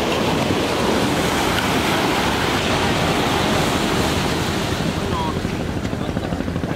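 Steady wash of small waves breaking in the shallows, with wind noise on the microphone.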